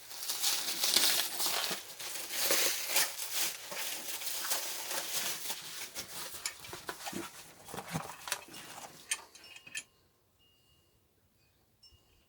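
Plastic packaging wrap being torn and crinkled by hand, a dense run of crackles and rustles that stops abruptly near the end.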